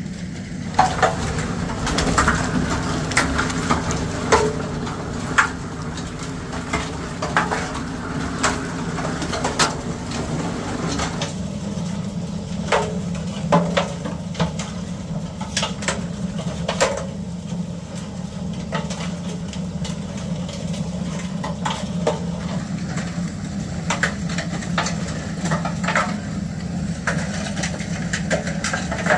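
An engine running steadily, its low hum changing slightly about eleven seconds in, with irregular sharp clacks and knocks over it.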